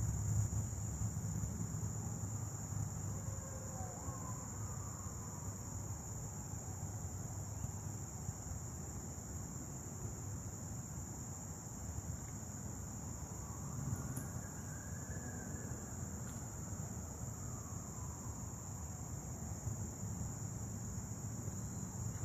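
Steady high-pitched chorus of insects, unbroken throughout, with a low rumble underneath.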